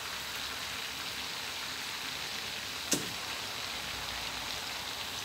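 Chicken frames deep-frying in hot oil in a wok, a steady sizzle, with one sharp click about three seconds in.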